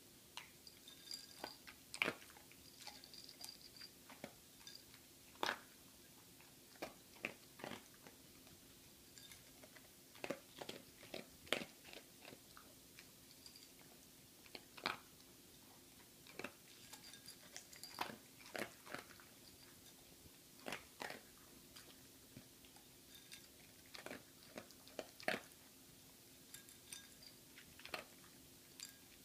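Small dog crunching dry kibble from a small ceramic dish: irregular sharp crunches and clicks, often a few in quick succession, with pauses of a second or two between mouthfuls.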